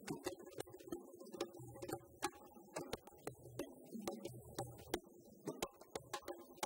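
Djembes and stick-struck drums playing a fast rhythm: many sharp strikes over repeated low booms.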